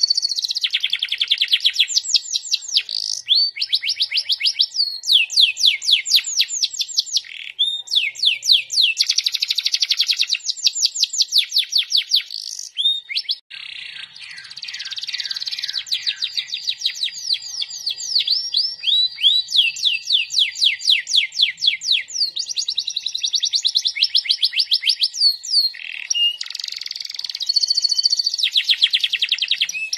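Domestic canary singing a long, continuous song of rapid trills: runs of fast repeated sweeping notes that change to a new phrase every second or two, with a brief break about thirteen seconds in.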